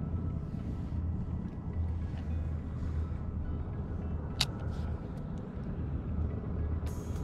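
Background music with a deep, pulsing bass, and one sharp click about four and a half seconds in.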